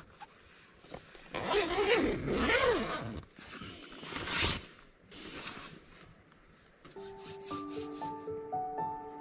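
Tent canvas rubbing and rustling in several bursts as the tent flap is pushed open, followed about seven seconds in by background music starting.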